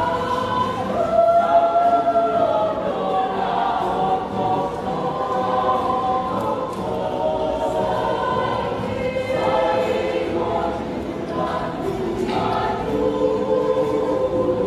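A mixed choir of women's and men's voices singing in parts, holding long sustained chords that shift every second or two.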